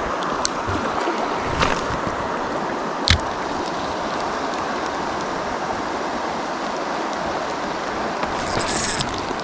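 Steady rush of river water flowing, with a single sharp knock about three seconds in.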